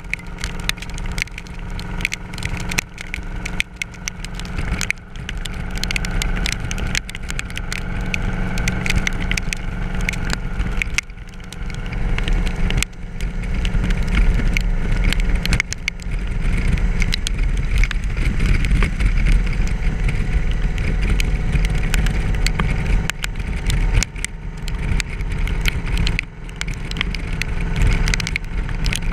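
Motorcycle at road speed heard from the rider's camera: the Yamaha Royal Star's V4 engine running steadily under heavy wind rush on the microphone, with frequent crackling ticks through it.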